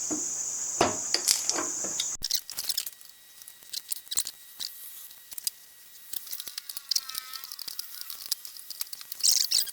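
A steady high hiss with a low hum that cuts off about two seconds in, then scattered small clicks, taps and handling noises from glue-pull dent repair on a metal motorcycle gas tank. There is a brief squeak near the middle and a louder rustle near the end.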